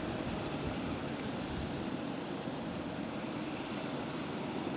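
Steady outdoor background noise, an even rumble and hiss with no distinct event.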